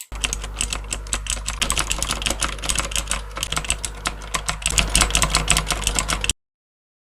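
Rapoo V550RGB 35-key mechanical keyboard being typed on fast, a dense stream of key clicks over a steady low hum. It stops suddenly about six seconds in.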